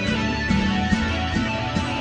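Recorded music: a song with guitar.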